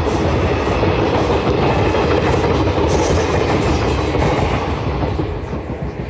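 Indian Railways sleeper coaches of an express train running past at speed, with the clickety-clack of wheels over rail joints and a steady rush of rolling noise. The sound eases a little near the end.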